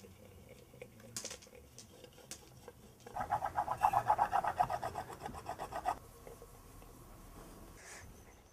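A polishing stone rubbed back and forth over a clay piece coated in red earth slip, burnishing it: quick rasping strokes, several a second, from about three seconds in to about six seconds in, with a few faint scrapes before.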